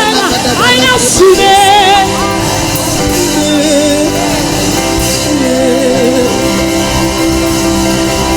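Gospel music: a voice singing with wide vibrato for the first two seconds or so, over steady held chords that carry on through the rest, with quieter sung lines weaving over them.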